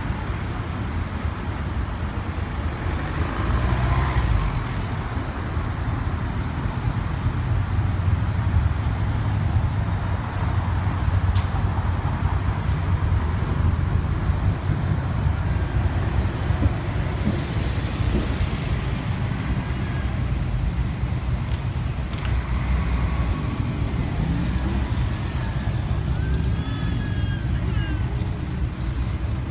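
City street traffic: cars and buses running past with a steady low rumble, and a short hiss about halfway through.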